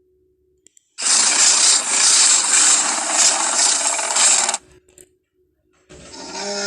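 Homemade monster sound effects. A loud, harsh, hissing rasp starts about a second in and lasts about three and a half seconds. After a short gap a pitched creature call begins near the end.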